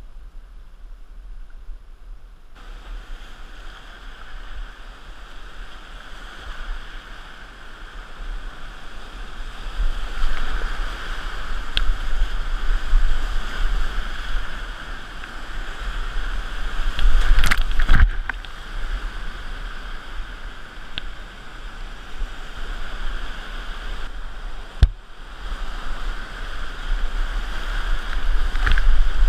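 Whitewater rapids rushing around a kayak, a steady noisy roar that grows louder about a third of the way in, with a few sharp hits of water splashing against the kayak and paddle.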